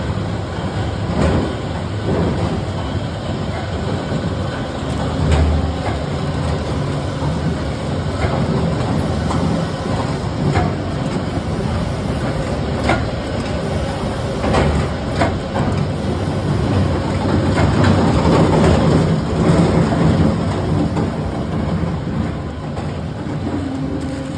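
Box-recycling machinery running: a cardboard shredder and a paper dunnage-bag form, fill and seal machine, a loud steady industrial rumble with scattered clacks and knocks.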